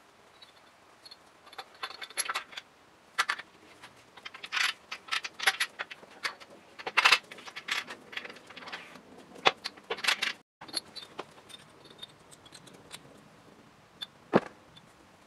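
Metal main bearing caps and bearing shells of a Dodge 5.7 HEMI engine clinking and clacking as they are handled and set onto the crankshaft in the block: an irregular scatter of sharp metallic clinks, with one sharper knock near the end.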